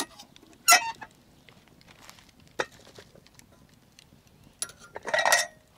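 Metal cookware and utensils clinking: a few sharp knocks, the loudest about a second in, and a short rattling clatter near the end.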